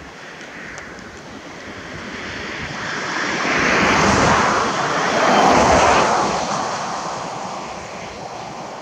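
A road vehicle passing by: its noise swells, is loudest about halfway through, then fades away, over a steady background hiss.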